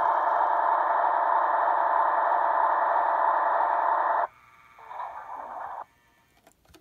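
Steady electronic diesel-engine sound from the Märklin ALCO PA-1 model locomotive's small speaker, cutting off abruptly about four seconds in. A quieter, shorter sound that drops in pitch follows, then a few faint clicks.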